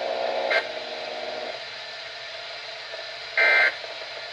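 Weather radio hiss and a low hum that stops about a second and a half in, then near the end a short, loud, screechy digital data burst: the first of the three EAS/SAME end-of-message bursts that close a NOAA Weather Radio alert.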